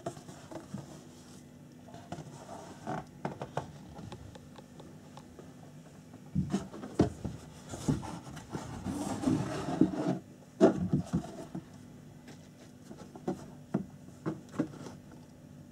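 Cardboard kit box being handled, the lid and box sides rubbing and scraping with scattered light knocks and taps, busiest from about six to eleven seconds in.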